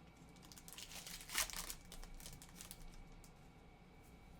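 Plastic trading-card pack wrapper crinkling as it is torn open, with a louder crackle about a second and a half in.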